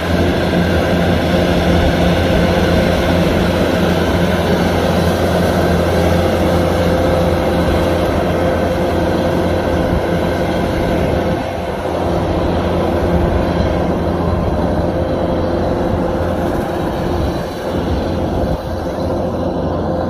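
Kubota DC-105X combine harvester running under load while cutting rice: its diesel engine and threshing machinery give a steady loud drone with a constant higher whine on top, easing slightly twice in the second half.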